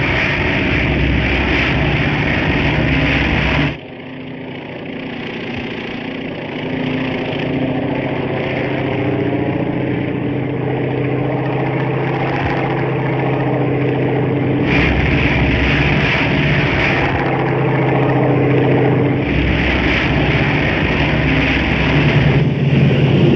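TBF Avenger torpedo bomber's engine droning loudly and steadily, as heard from the cockpit. About four seconds in it drops to a quieter, more distant drone with steady tones as the plane approaches. The loud cockpit drone returns about fifteen seconds in.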